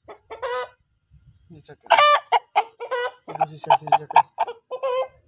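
Chickens clucking, with a loud, high squawk about two seconds in and a run of short, quick clucks after it.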